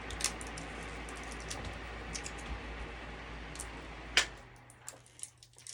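Electric fan running with a steady whoosh and low hum, switched off with a loud click about four seconds in, its noise dying away; scattered small button clicks follow.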